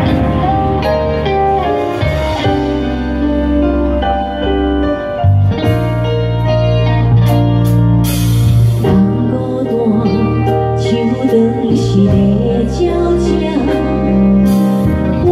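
A live band with guitar, keyboard and drums plays a slow Hokkien song, and a woman's singing voice comes in about a third of the way through. A cymbal crashes about halfway and again near the end.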